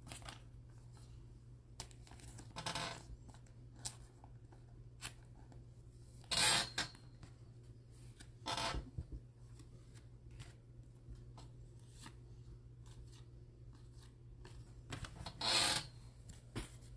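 Donruss baseball trading cards being handled: cards slide and rub against each other in four short rasping swishes, with small clicks between, over a low steady hum.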